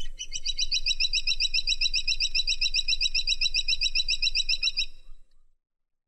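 Grey-and-buff woodpecker (caladi tikotok) calling: a rapid, even series of high notes, about seven a second, that stops about five seconds in.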